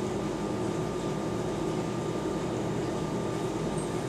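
Steady room hum with a few held low tones and a faint higher tone, even throughout: room tone.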